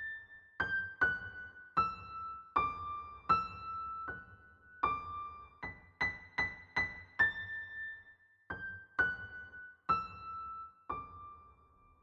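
Background music: a slow solo keyboard melody, electric-piano-like, played one note at a time. Each note starts sharply and rings as it fades, and the last note is held and rings out near the end.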